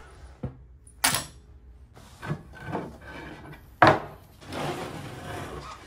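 Wood knocking and rubbing as a solid oak side table frame and its pressboard laminate top are handled and pulled apart: two sharp knocks, about a second in and near four seconds, with rubbing and scraping between and after.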